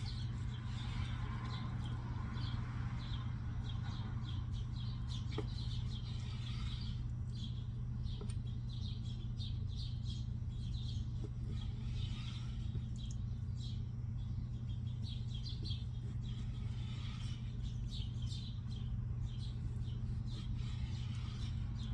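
Small bird chirping in quick repeated bursts over a steady low electrical hum.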